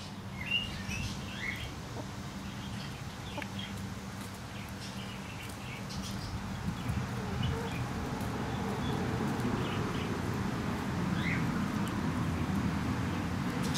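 Foraging hens giving short, soft chirps, a few near the start and another late on, over a low steady engine hum that grows louder toward the end.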